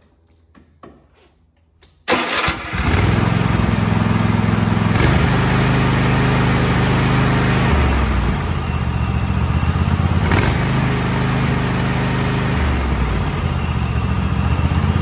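Kohler 7000 series KT735 V-twin lawn tractor engine started about two seconds in, catching almost at once and then running steadily on both cylinders with a new ignition coil, its speed changing a few times. There is a little popping and missing at the top end, which the owner puts down, probably, to unburned fuel that built up while one cylinder was not firing.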